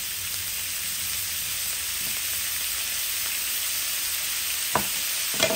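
Pork pieces sizzling as they fry in a large metal wok, a steady hiss. Two sharp clicks come near the end.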